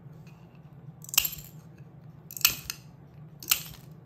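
Hand nippers biting scrap sheet glass into long, skinny shards: three sharp snaps roughly a second apart.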